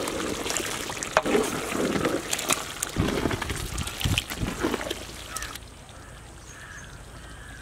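Thick chicken curry gravy bubbling and plopping in a large pot, with irregular wet plops and clicks as a ladle stirs through it. After about five and a half seconds it drops to a quiet outdoor background.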